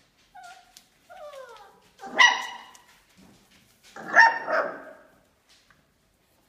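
Australian Labradoodle puppies, five weeks old, giving a few short whines that fall in pitch, then two loud, high barks about two seconds apart.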